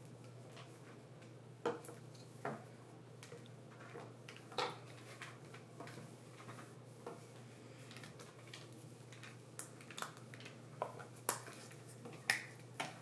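Irregular sharp taps and clicks of a plastic Play-Doh knife striking the table as dough is cut into strips, about a dozen in all, over a faint low steady hum.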